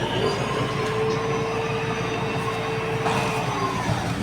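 Cough assist machine's blower whining at one steady pitch for about three and a half seconds during a breath cycle, rising in at the start and sagging away near the end.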